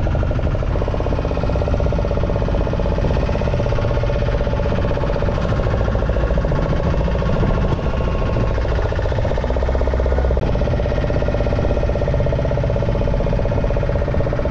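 A boat's engine running steadily, with a fast even firing beat.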